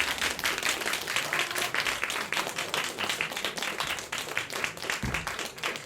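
Audience applauding, many hands clapping, with a brief low thump about five seconds in.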